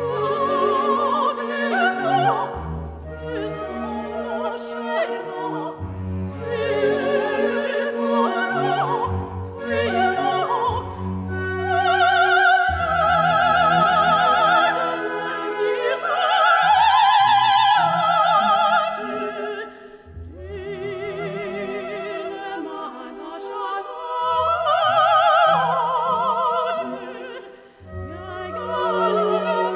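Operatic singing with orchestral accompaniment: long sung phrases with wide vibrato over sustained strings, with short breaks between phrases.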